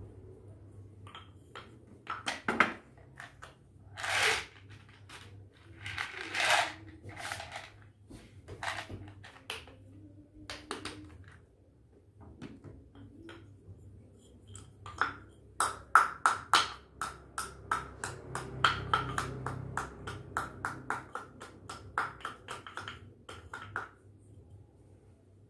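A few short rattles and rustles, then a long run of quick, sharp clicks and taps, about three or four a second with a slight ring, as small containers and tablets are handled on a glass-topped table.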